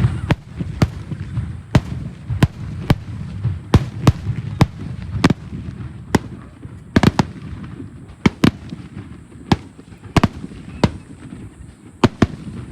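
Fireworks going off: a rapid, irregular series of sharp cracks, about one or two a second, over a continuous low rumble.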